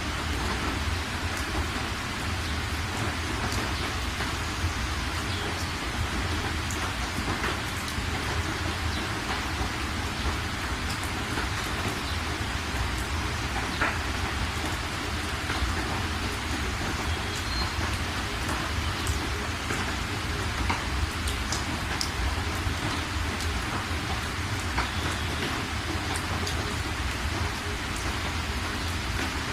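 Steady rain falling, with scattered drops ticking on surfaces over an even hiss and a constant low rumble underneath.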